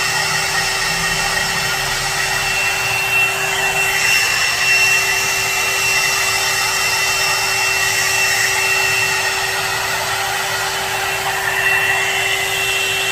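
One-step hot air brush (hair dryer and styler) running on its low setting while brushing through wet hair: a steady rush of blown air with a constant whine.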